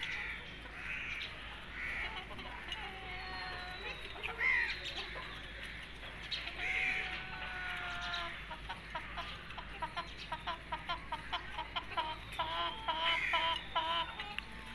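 Half-grown chickens clucking and calling while they peck feed from a dish. About halfway through they break into a quick run of short clucks, roughly three or four a second, which bunch closer together near the end.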